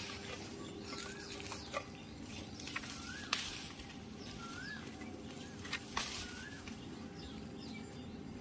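A bird repeating a short rising-and-falling whistled call about every second and a half, over sharp taps and leaf rustles from a bamboo mango-picking pole working in the tree's branches.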